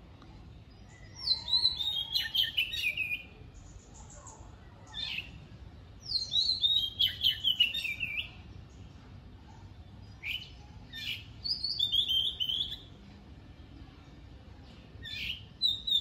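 A small songbird singing from a garden tree: phrases of rapid, high chirps that fall in pitch, repeated every few seconds with short pauses between.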